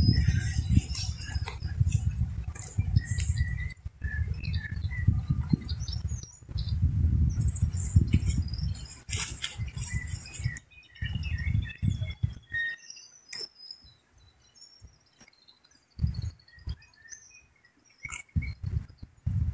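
Gusts of wind rumbling on the microphone, falling to near quiet after about twelve seconds, with small birds chirping now and then. Light pattering and rustling as the caught pacu is handled on the grass.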